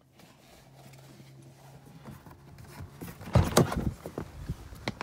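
A Tesla Model S door is opened from inside as someone climbs out. Rustling and handling noise build up, then a cluster of sharp clunks and knocks comes about three and a half seconds in, with a few smaller clicks after.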